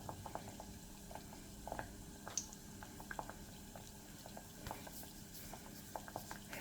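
Flour dumplings deep-frying in hot oil in a small pot: the oil bubbling with faint, irregular crackles and pops.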